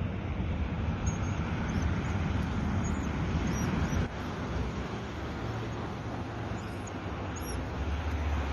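Steady rumble of road traffic, with an abrupt change in the noise about four seconds in.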